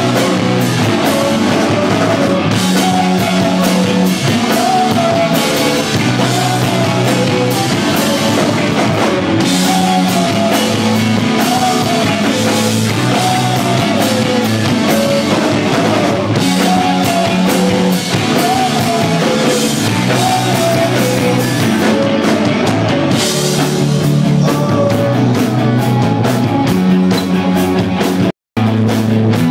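Rock band playing live: electric guitars, bass and a drum kit, with a sung melody line over them. The sound cuts out for an instant about a second before the end.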